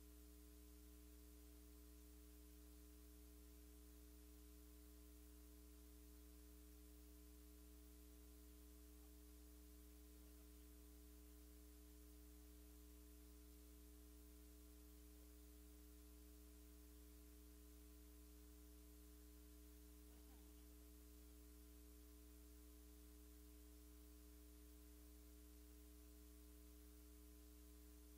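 Near silence: a faint, steady electrical hum on the broadcast audio.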